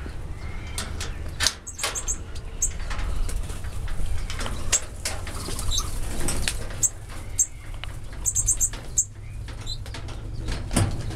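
Aviary birds flapping their wings as they fly about, with short high chirps of small finches throughout and a quick run of chirps about eight seconds in, over a steady low rumble.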